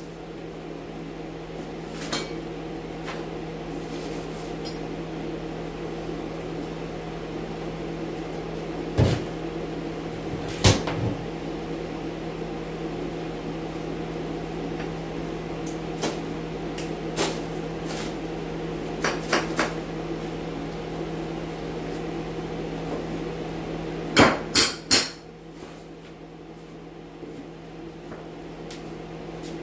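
Steady hum of an air scrubber running, broken by sharp knocks and clatters as wood strapping is pried off the bottom of a cinderblock wall. There are scattered single knocks, then three in quick succession near the end, after which the hum gets quieter.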